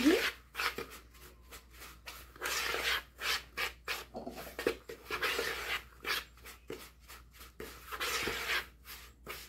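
Hands rubbing and squeezing a crumbly cornmeal-and-cassava-starch dough against the sides of a plastic mixing bowl: a series of irregular, short scraping strokes.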